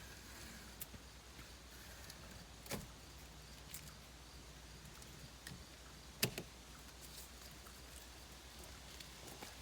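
Scattered clicks and knocks from working a part onto a wooden plumbing box by hand, with two sharper knocks about three and six seconds in, over a faint steady low hum.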